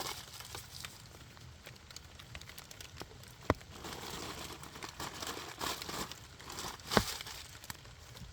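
Wood fire crackling, with two sharp pops, about three and a half seconds apart, and a denser run of crackling between them.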